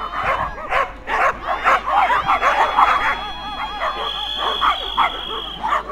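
Several dogs barking and yipping in rapid, overlapping barks, the excited barking of flyball dogs waiting to run. A steady high tone holds through the second half and stops shortly before the end.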